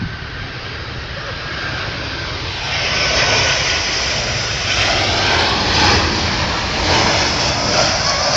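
Airplane flying over, a roar of engine noise that builds up over the first three seconds and then stays loud.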